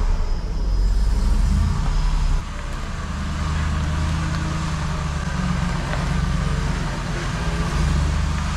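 Engine of a GMC medium-duty chipper truck running as the truck is driven slowly into a shop. Its steady low rumble drops a little about two and a half seconds in.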